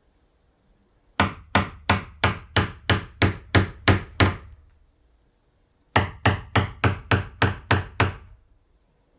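Hammer striking a wood chisel, cutting a hinge mortise into a wooden door frame: a run of about ten sharp blows at roughly three a second, a short pause, then about eight more.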